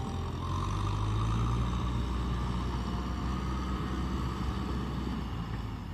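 Kubota tractor's diesel engine running under load as its front blade pushes mud and water. A steady low drone, a little louder between about half a second and two seconds in.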